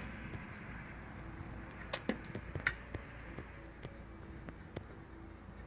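A few light clicks over a low steady hum, three of them close together about two seconds in.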